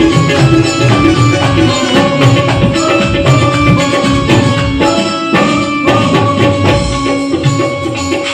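Instrumental passage of Punjabi Sufi devotional music: a keyboard melody of held notes over steady hand-drum rhythm, with the players clapping along.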